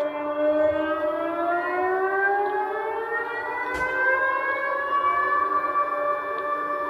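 Emergency alert siren: several overlapping tones slowly rising in pitch, then holding steady, with one sharp click about four seconds in.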